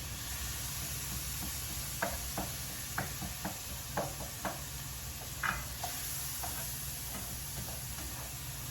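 Food sizzling steadily in a frying pan, with a utensil clicking against the pan about seven times while it is stirred, from about two seconds in.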